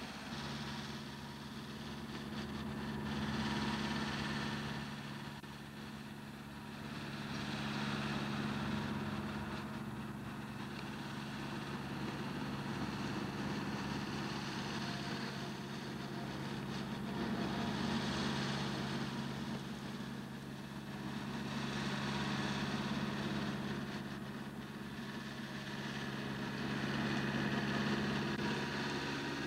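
Riding lawn tractor's small engine running steadily, its sound swelling and fading every four to five seconds as the tractor moves about the yard.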